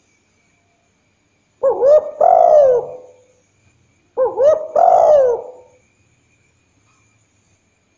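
Spotted dove cooing: two phrases of its call, each a couple of short notes running into a longer coo that rises and falls, about a second and a half long, spaced roughly two and a half seconds apart.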